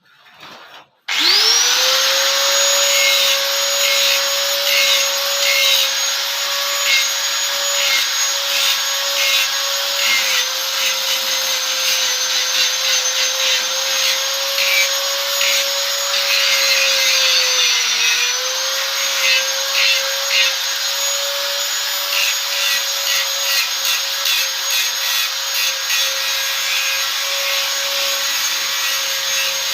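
Electric angle grinder starting about a second in and running steadily while it grinds or brushes the steel body of a concrete mixer, a high motor whine over scratchy rubbing. The pitch sags briefly once midway as the tool is pressed harder.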